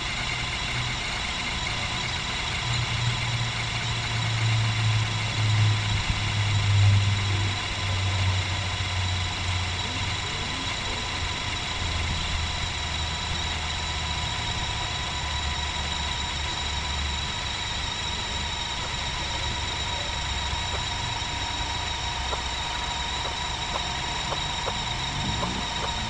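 An engine running steadily, its low note swelling and shifting over the first ten seconds, then settling.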